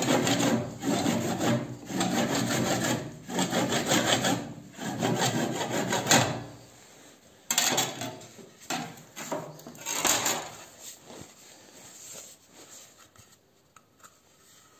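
A gloved hand rubbing the inside of a turned wooden bowl as it spins on a wood lathe, a rough rubbing in strokes of about a second each, stopping about six and a half seconds in. A few lighter wooden scrapes follow before it goes quiet near the end.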